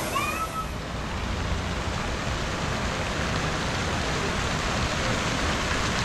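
Steady rush and splash of flowing water from a fast-moving lazy river and its fountains, with a brief high-pitched cry right at the start.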